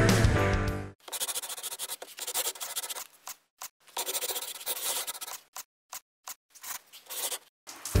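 Music cuts off about a second in, followed by a pen-drawing sound effect: a run of scratchy rubbing strokes of varying length with short gaps between them, like a marker sketching lines on paper.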